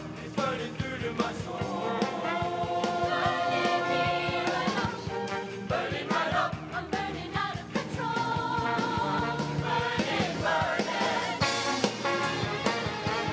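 A show choir singing in harmony over a live band, with a steady beat underneath.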